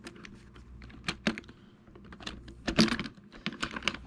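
Irregular small clicks, taps and clatter of the Kirby vacuum's plastic and metal drive-assembly parts being handled and fitted together by hand, with a louder knock about three seconds in.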